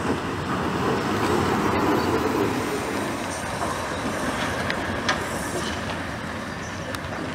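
Steam locomotive 03 1010, a DR class 03.10 express engine, rolling past with its tender: a steady rumble of wheels on rail, loudest in the first few seconds, with a few sharp clicks.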